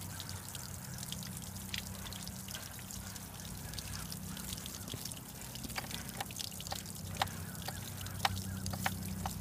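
Garden-hose water running through outboard flushing muffs, splashing and dripping onto wet pavement, over a steady low hum, with a few scattered light clicks in the second half.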